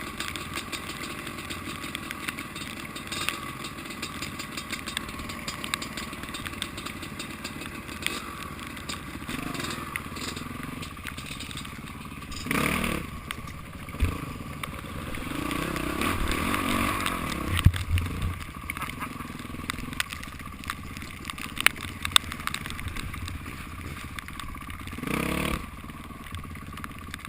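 Dirt bike engine running, its pitch rising and falling through the middle, with two short louder bursts, one about halfway and one near the end.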